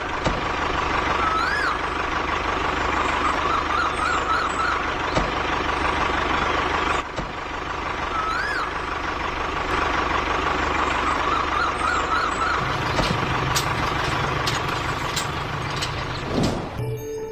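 Truck-like engine noise running steadily, with a thin steady whine and a few short rising-and-falling whistle notes over it, and a brief break about seven seconds in.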